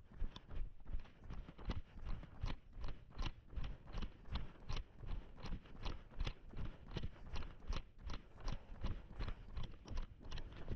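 A runner's footsteps on an outdoor path: a steady, even running stride of about three footfalls a second.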